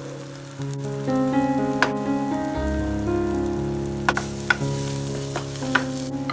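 Food frying in a pan with a light sizzle and a few sharp pops, under background music of sustained notes.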